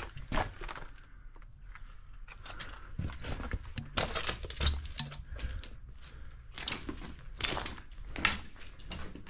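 Irregular crunching and scuffing footsteps on a gritty floor, with sharp steps every half second to a second.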